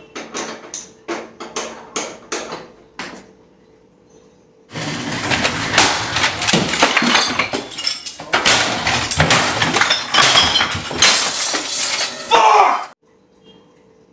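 Hand-held gas-stove spark lighter clicking about three times a second at a burner without lighting it, stopping about three seconds in. After a short pause comes a loud burst of crashing and smashing, like things being broken, that cuts off suddenly near the end.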